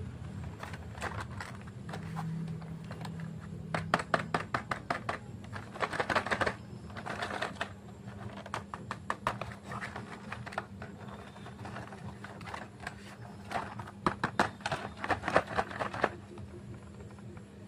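Plastic chocolate-bar wrappers crinkling and crackling as they are handled, in quick clusters of crackles with short pauses between them, over a low steady hum.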